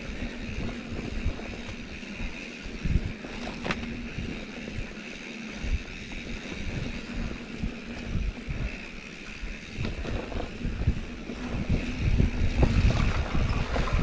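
Mountain bike coasting downhill on a dirt trail: wind buffeting the microphone over the rumble of the tyres. It grows louder over the last couple of seconds.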